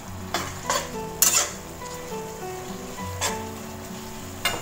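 Metal spatula scraping and tossing noodles and greens in a wok over sizzling sauce, in five sharp, unevenly spaced strokes: three in the first second and a half, then two more later.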